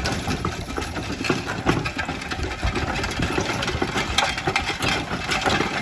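Steady, loud mechanical clatter with many small irregular knocks over a low rumble, cutting off abruptly near the end.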